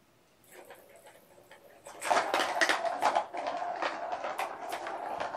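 Kittens playing with plastic toys: a busy run of clattering and rattling that starts about two seconds in.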